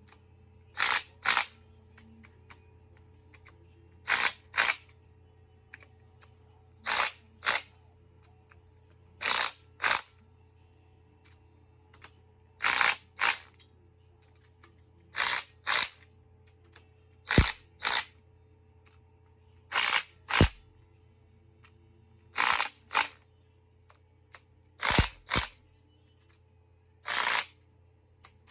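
Hand ratchet clicking in short bursts as each cylinder head bolt on a big-block Chevy is snugged down in turn. The bursts come in pairs, two strokes per bolt, roughly every two and a half seconds, over a faint steady hum.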